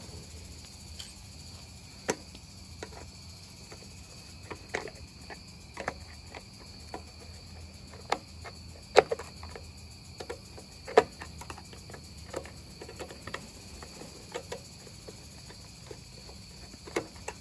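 Scattered sharp clicks and knocks of parts being handled and fitted on the small engine, the two loudest about 9 and 11 seconds in, over a steady high-pitched insect trill.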